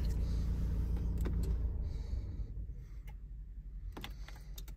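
A low rumble inside a car cabin that dies away about two seconds in, with a few light clicks and taps, several close together near the end.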